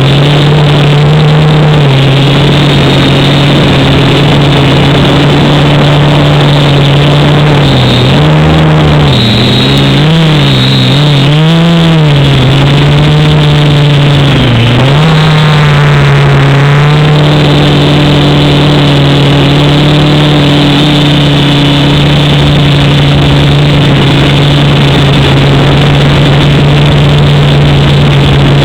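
Quadcopter's motors and propellers running with a loud, steady drone. From about 8 seconds in, the pitch swings up and down repeatedly for several seconds as the throttle is worked, then it holds steady again.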